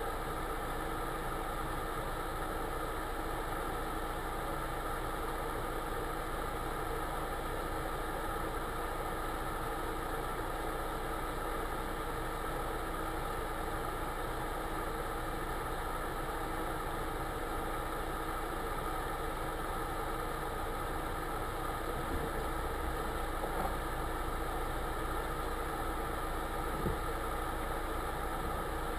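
Car engine idling steadily, heard from inside the cabin while the car stands still. A few light knocks come near the end.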